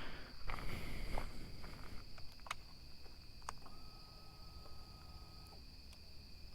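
Faint, steady chirring of crickets, with a few light clicks.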